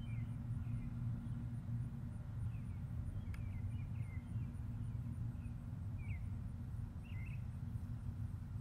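Steady low hum of nearby lawn mowers, with short high chirps from birds scattered through it and a faint, even high-pitched ticking.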